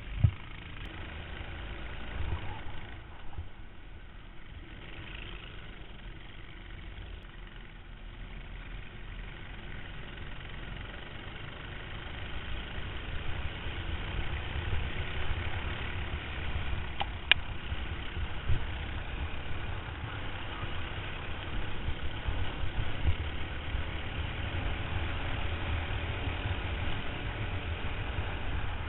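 Go-kart engine heard from a camera mounted on the kart: idling on the starting grid, then running louder as the kart pulls away and follows the pack. A single sharp click about two-thirds of the way through.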